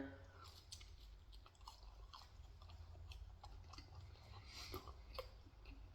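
Faint chewing of pizza close to the microphone, a scatter of small mouth clicks over a low steady hum.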